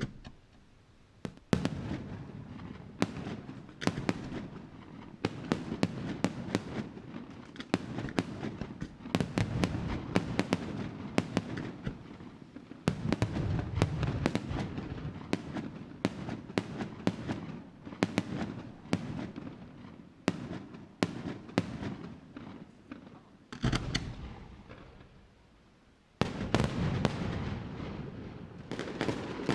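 Aerial fireworks display: many sharp bangs and cracks in quick, irregular succession over a continuous low rumble, easing off briefly for a couple of seconds near the end before the bursts start again.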